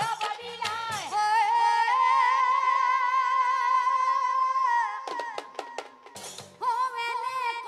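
A woman singing Assamese nagara naam devotional song into a microphone, holding one long wavering note in the middle. About five seconds in, a quick run of sharp percussive strikes replaces the voice, and the singing resumes near the end.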